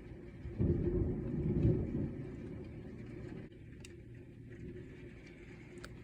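Thunder: a deep rumble that breaks in suddenly about half a second in, is loudest for about a second and a half, then fades away.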